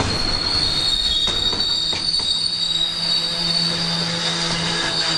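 Freight train's steel wheels squealing on the rails: a steady high-pitched screech in two close tones as the cars roll past, with a few wheel clicks early on and a low steady hum coming in about halfway.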